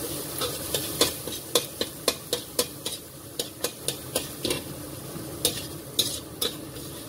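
Metal spoon stirring minced garlic in a hot, dry stainless steel wok: repeated sharp clicks and scrapes of metal on metal, irregular, with the garlic sizzling underneath.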